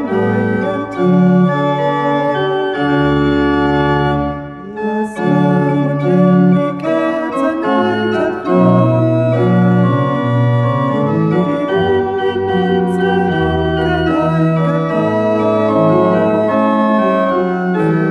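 Church pipe organ playing a slow piece in held chords over a deep bass line, with a short break between phrases about four and a half seconds in.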